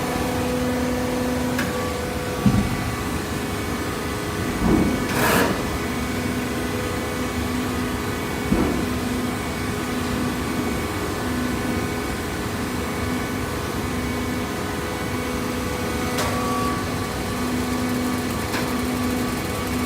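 Hydraulic fiber baler running: a steady machine hum with a pulsing low drone, broken by a few short knocks and clunks.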